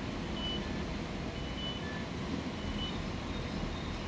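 Steady outdoor rumble of traffic-like noise, with a short high electronic beep repeating about once a second, like a vehicle's reversing alarm.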